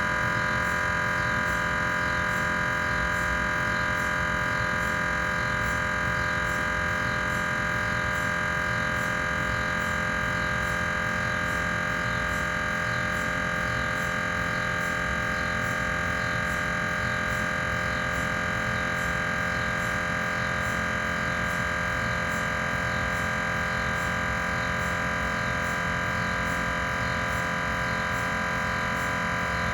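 GE 3T Twinspeed MRI scanner's gradient coils running a cardiac pulse sequence. The result is a steady, unchanging electronic drone of several pitches laid over one another, with a faint regular ticking.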